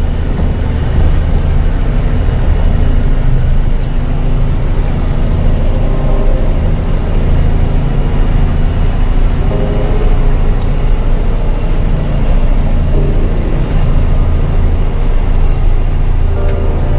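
Truck's diesel engine running steadily, heard from inside the cab while driving a rough dirt road, with a constant low drone.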